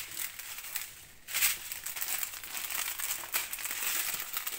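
Plastic strip packets of diamond painting drills crinkling and crackling as they are handled, with a louder crackle about one and a half seconds in.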